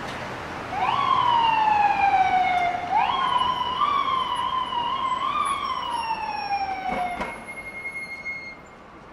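Emergency vehicle siren over street traffic noise. It sweeps up sharply about a second in and slides slowly down, sweeps up again, wavers through a few short rises, then slides down and cuts off near the end.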